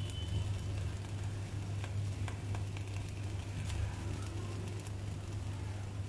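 Water heating in an aluminium-foil pouch over an open flame, sizzling faintly with scattered small ticks as bubbles form, over a steady low hum.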